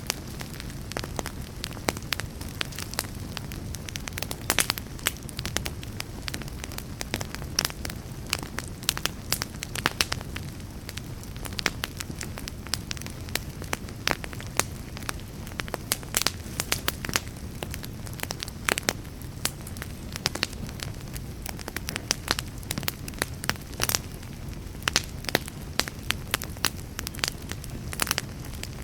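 Fire burning in a fireplace: a steady low rumble with frequent, irregular sharp crackles and pops.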